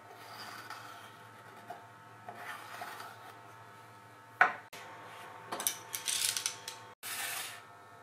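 A pen scratching over a PVC sheet as it traces around a curved piece, then a sharp click halfway through, followed by bursts of scraping and rasping on the plastic.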